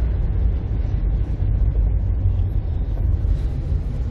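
A car driving along a road, a steady low engine and road rumble.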